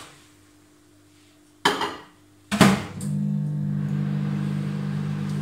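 Two sharp clunks about a second apart as the microwave oven is shut and switched on, then the microwave starts up and runs with a steady low hum.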